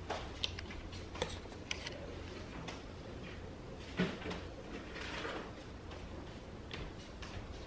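Scattered light taps and knocks of a plastic spoon and plastic bowl on a plastic table as a toddler eats, with one sharper knock about four seconds in.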